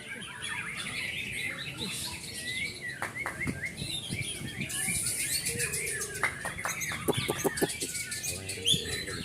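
White-rumped shamas chirping repeatedly in short, high calls, with a quick run of sharp clicks or flutters about two-thirds of the way through.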